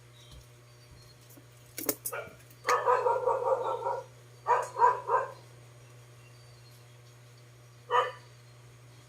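A dog barking in a quick run of barks about three seconds in, a few more a second later, and a single bark near the end, over a steady low hum.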